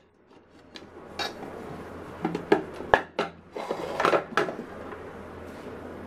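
Scattered knocks and clatter of an upturned nonstick frying pan against a plate as it is tapped and lifted off to turn out a cake.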